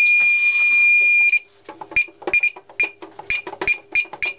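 Fire alarm sounder giving a steady high-pitched tone that cuts off about a second and a half in. Then comes a quick uneven run of short beeps, each with a click, like button presses on the alarm control panel's keypad.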